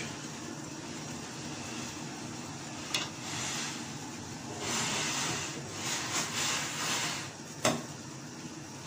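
Water boiling in a steel saucepan on a gas burner, a steady bubbling hiss. A click comes about three seconds in, louder handling noise in the middle, and a sharp click near the end as a spoon goes into the pot.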